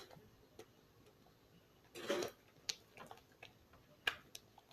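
Faint handling noises: a short rustle about two seconds in, followed by a few small, sharp clicks spread over the next two seconds.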